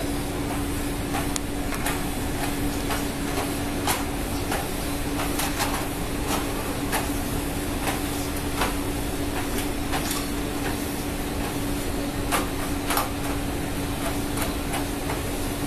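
Ship's machinery running: a steady drone with a constant hum, and irregular light clicks and knocks over it.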